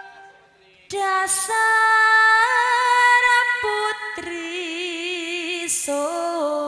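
A woman singing into a microphone, almost unaccompanied, in long held notes with a wavering, ornamented line. She comes in about a second in, after a brief pause in the music.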